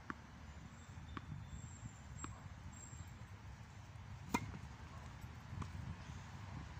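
A tennis ball bounced three times on a hard court about a second apart, then a serve: the racket strikes the ball with one sharp, loud pop a little past four seconds in, followed by a fainter knock of the ball landing or being returned across the court.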